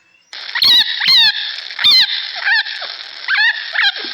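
An animal calling repeatedly: about six short calls, each falling in pitch, over a steady hiss.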